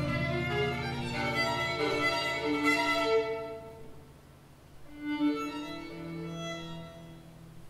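Recorded string music: a solo violin line over lower bowed strings, from a sonification piece whose violin part traces the edge patterns of oil-spill photographs as ornamentation. The notes thin out about four seconds in, come back a second later over a low held note, and die away near the end.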